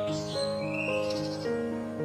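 Soft instrumental background music of slowly changing held chords, with a short bird chirp just under a second in behind it.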